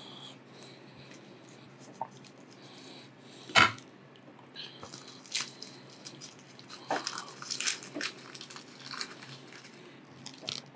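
Light crackling and clicking of a dried nori sheet and a spoon as a spicy tuna hand roll is filled and rolled by hand, with one sharp knock about three and a half seconds in.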